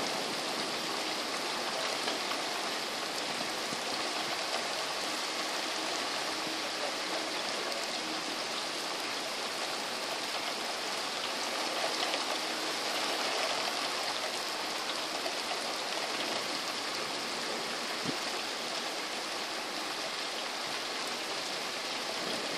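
Steady rain falling in a thunderstorm, an even hiss with no thunder clap.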